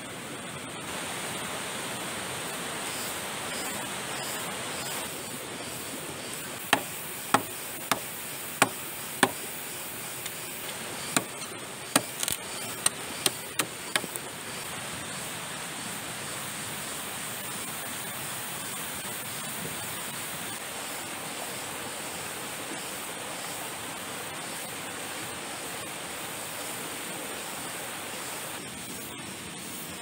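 River water rushing steadily, with a run of about a dozen sharp knocks between about seven and fourteen seconds in.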